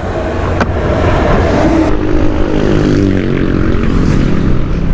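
Yamaha scooter engine running as the bike rides off, its note shifting in pitch, with wind rushing over the microphone. A single sharp click about half a second in.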